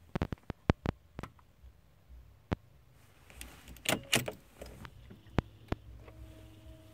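Sharp plastic clicks of buttons being pressed on a Volkswagen Touareg's RCD 550 radio head unit: a quick run of clicks at the start and single ones later. A louder burst of rustling and clicking comes about halfway through. A faint steady hum comes in near the end.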